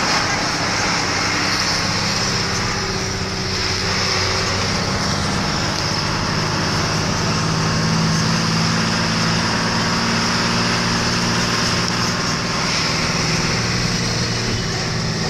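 A moving road vehicle's engine and road noise, heard from aboard the vehicle: a steady low hum with tyre and wind noise and a steady high hiss over it.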